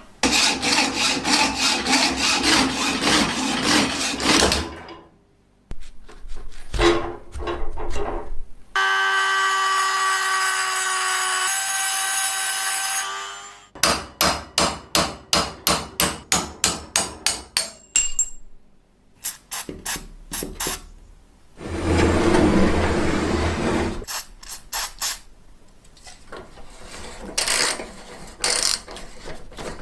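Hand tool work on an old metal potato peeler: scraping and rubbing, a steady pitched hum for a few seconds, then a run of sharp hammer taps at about four a second.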